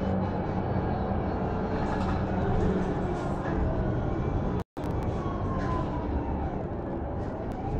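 Interior running noise of a BredaMenarinibus Avancity+ natural-gas city bus under way: steady engine and road noise with a faint whine that slowly falls and rises in pitch. The sound cuts out for an instant about halfway through.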